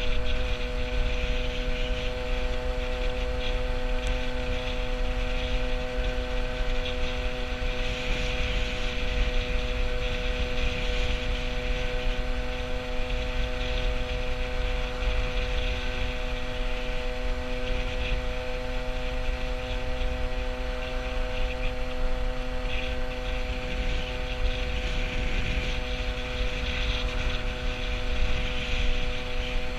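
Peugeot 103 moped's 50cc two-stroke single-cylinder engine running at a steady cruising speed, its note holding pitch, with wind rumble on the microphone.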